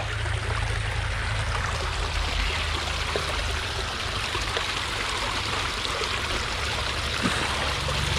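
Steady rush of running water from a rain-swollen creek, with a couple of faint knocks.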